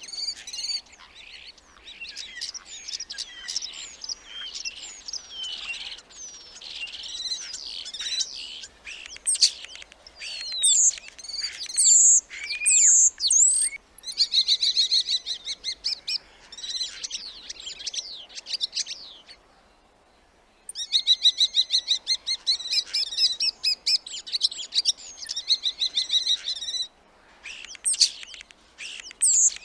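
Starling singing: a varied jumble of whistles, sliding notes and clicks, broken by two long buzzy rattles, the second coming after a brief pause about two-thirds of the way through.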